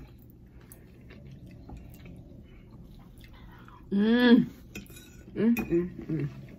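Cutlery clinking faintly against dishes during a meal. A short voiced sound from a person comes about four seconds in, followed by a few more brief ones near the end.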